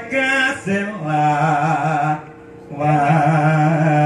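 A man singing a Javanese tembang macapat verse (Pocung) in slow, long-held notes with a wavering pitch: two drawn-out phrases with a short breath about two seconds in.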